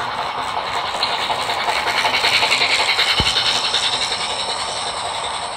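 Model steam locomotive and its passenger cars running past on the track, a steady rolling clatter that swells as the train passes closest, about two to three seconds in, then eases off.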